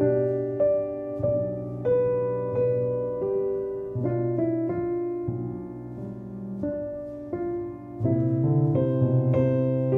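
Background piano music: a slow, gentle melody of single struck notes over low held bass notes, growing louder and fuller about eight seconds in.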